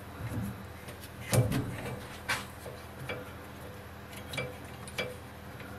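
Several faint metallic clicks and clinks, about one a second, as the steel workpiece and tooling on a stopped lathe are handled by hand.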